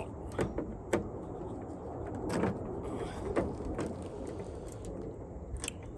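Scattered metallic clicks and knocks from inside a truck door, about five over the stretch, as the retaining clip of the door lock cylinder is worked loose to free the cylinder, over a steady low background noise.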